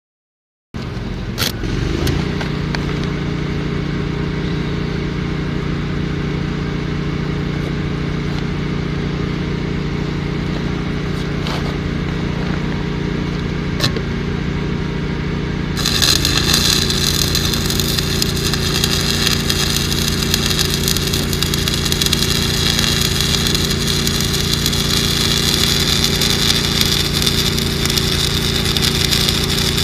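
Engine-driven welding machine running steadily. About halfway through, a welding arc is struck and crackles and hisses over the engine hum.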